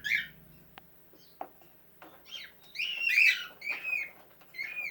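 Cockatiel chirps and whistles played from a video through computer speakers: a few short calls at the start, then a loud run of chirps in the middle and one more near the end.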